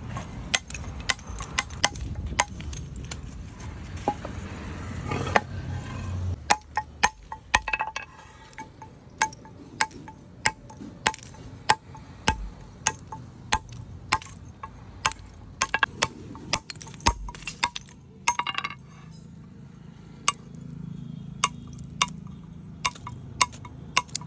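Hammer blows on a steel chisel cutting into a sandstone slab, each a sharp metallic clink, in an irregular run of roughly one to two strikes a second. The chisel is chipping the slab's edge round to form a traditional stone grinder.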